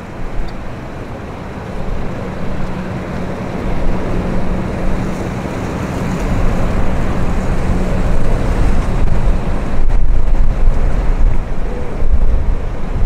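Boeing 767-300ER airliner on final approach, its twin jet engines' rumble growing steadily louder as it comes closer, with a faint steady hum in the middle. Wind buffets the microphone with a heavy low rumble in the last few seconds.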